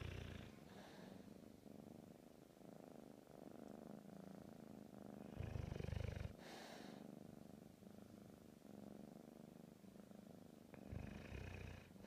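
Kitten purring steadily up close, while a bullmastiff snores in slow, loud breaths: three times, about five to six seconds apart.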